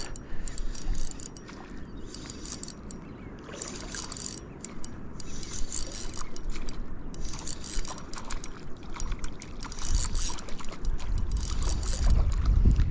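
Spinning reel being cranked to work a topwater lure, with its gears clicking and ticking over the lap of shallow water. A low rumble builds near the end.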